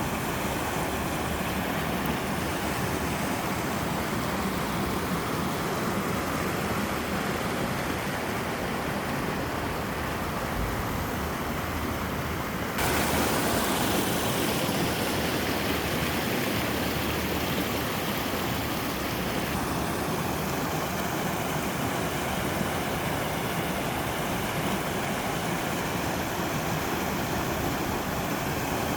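Mountain stream and waterfall water rushing steadily over rocks. The rush becomes slightly louder and brighter about 13 seconds in.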